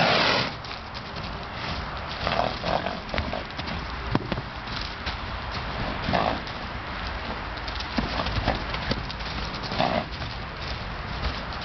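Agitated Arabian mare snorting: four loud blowing snorts a few seconds apart, the first and loudest right at the start, with scattered knocks of her hooves on the ground.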